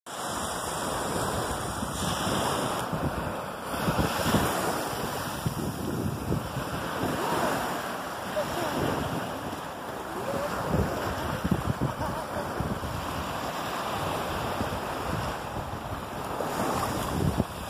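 Small waves of surf washing up on a sandy shore, with wind buffeting the microphone.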